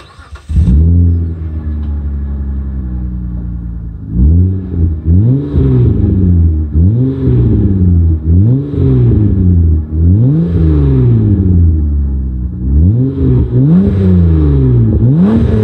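Mitsubishi Galant 2.5-litre V6 running through a Remus aftermarket exhaust. It starts with a short crank and a rev flare, then idles for a few seconds. From about four seconds in it is blipped over and over, roughly eight to ten quick revs that rise and fall, coming closer together near the end.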